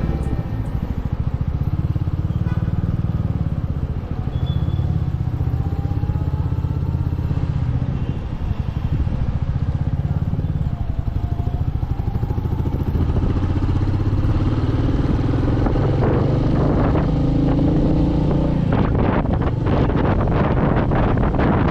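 Royal Enfield Meteor 350's single-cylinder engine thumping steadily while riding, heard from on the bike. In the last few seconds wind buffets the microphone as the ride goes on.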